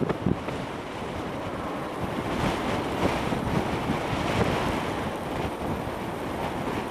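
Strong wind rushing over the microphone: a steady noise that swells a little about two seconds in.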